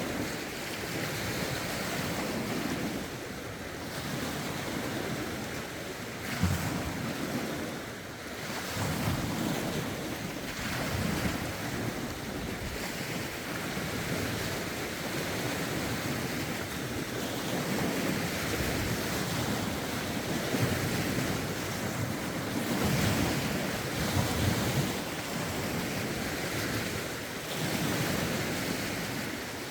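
Lake waves lapping and washing ashore in a continuous wash that swells every few seconds, with gusty wind buffeting the microphone.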